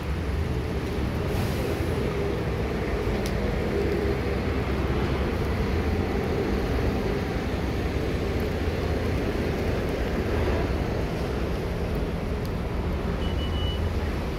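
Steady city street noise on a wet road: a continuous low traffic rumble under an even hiss.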